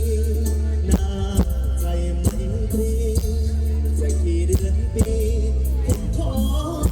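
Live mor lam band music over a loud PA system, with heavy sustained bass, a held wavering melody line and a steady beat.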